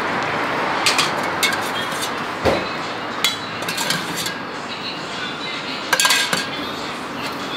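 Metal ladle clinking and scraping against stainless steel soup pots and a small metal bowl as broth is dished out. The clinks come at irregular moments, with a quick cluster about six seconds in, over a steady background noise.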